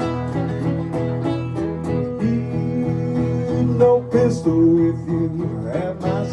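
Live acoustic blues: fingerpicked guitar or banjo playing steady plucked notes over a bass line, with some bent or slid notes in the middle.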